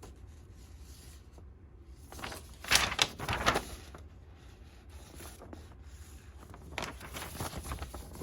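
Toy packaging being handled by hand: a quick cluster of rustles and knocks about three seconds in, and lighter handling noise near the end.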